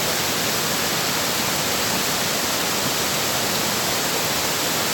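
Steady rush of a tall waterfall's water falling and splashing, an even hiss with no breaks.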